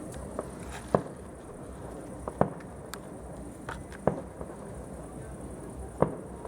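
Festive fireworks bursting: four sharp bangs, each about one and a half to two seconds after the last, with fainter pops between them, each bang trailing off briefly.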